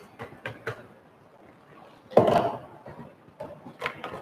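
Plastic water bottle being handled: a few light clicks and knocks, with one louder handling sound about two seconds in.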